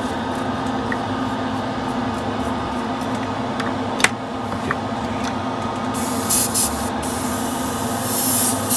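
Spray booth exhaust fan running steadily, with a single click about four seconds in. From about six seconds, an airbrush sprays clear coat in short hissing bursts, pulsing on and off near the end: a light, sandy mist coat laid over the decals.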